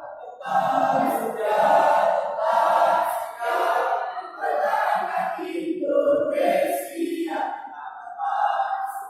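Choir singing in short phrases, with brief dips between them.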